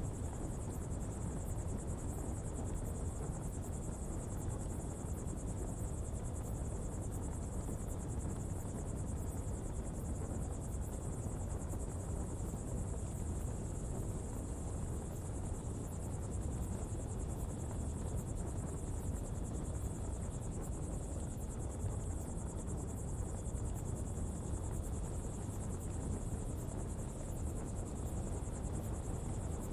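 Coal-fuelled pottery fire burning with a steady low rushing noise, under a constant high-pitched insect buzz.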